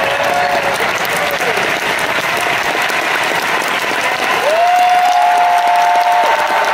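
Large arena crowd clapping and cheering steadily, with long drawn-out shouts rising above the noise at the start and again about four seconds in.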